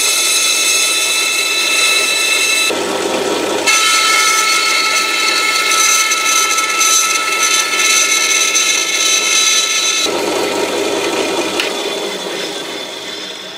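Bandsaw running with a steady high whine, its blade cutting thin sheet stock. Twice, about three seconds in and again near ten seconds, the sound turns rougher and lower for a second or so. It fades near the end.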